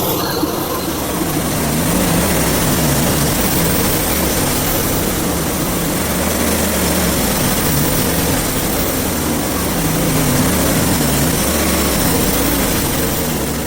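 Portable band sawmill running steadily, its engine humming as the band blade cuts through a hardwood log.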